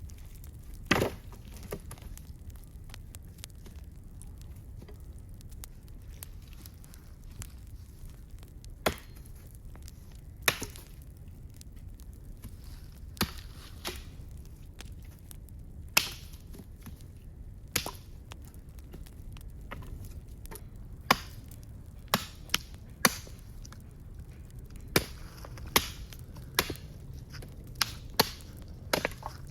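Irregular sharp wooden knocks and cracks, spaced several seconds apart at first and coming closer together in the last third, over a steady low rumble.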